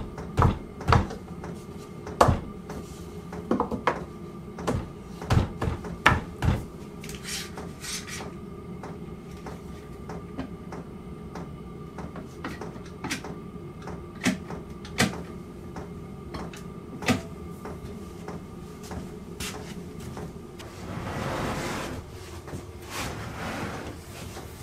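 Workbench handling noises: tools, clamps and boards knocked and set down on a wooden bench top. There is a quick run of sharp knocks and clicks over the first several seconds, then scattered single knocks over a faint steady hum. A short stretch of rushing noise comes near the end.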